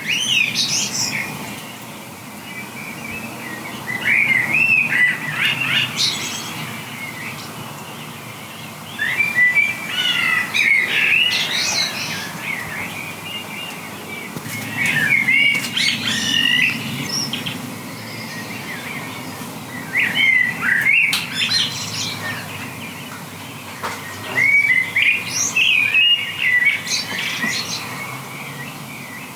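A songbird singing short, chirpy song phrases, one every five seconds or so, with quieter pauses between.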